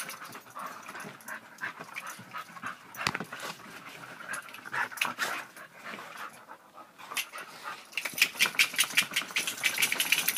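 Two soft-coated wheaten terriers play-fighting in snow, panting and scuffling. Near the end comes a quicker run of sharp, rapid sounds, several a second.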